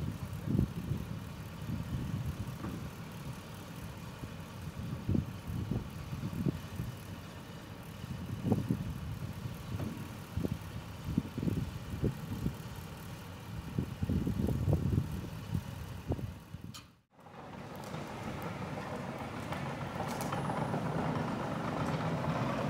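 Irregular low rumbling, like wind buffeting the microphone, over a faint engine running. After a sudden cut about two-thirds through, a Komatsu excavator's diesel engine runs steadily as it works its boom.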